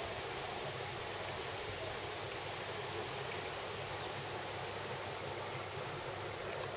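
Steady, even hissing background noise with no distinct events.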